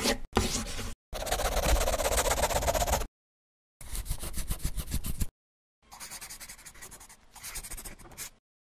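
Pencil scribbling on paper, a drawing sound effect: five or six bursts of rapid back-and-forth strokes with short silent gaps between them, the last two fainter.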